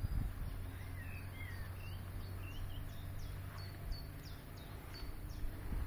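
Songbirds chirping in a quick run of short, sliding whistled notes over a steady low rumble.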